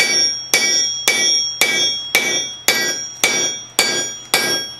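Hand hammer striking yellow-hot steel on a blacksmith's anvil, forging a hammerhead: steady, even blows a little under two a second, about nine in all, each ringing briefly as it fades.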